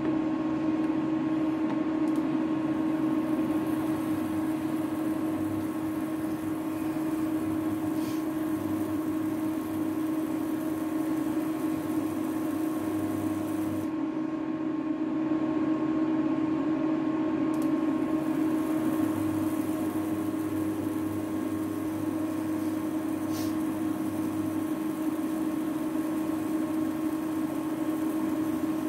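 Steady electric hum of a flat electric cooktop, its fan and electronics running, with a pot of mug dal heating on it toward a full boil. A lower hum cuts in and out every few seconds.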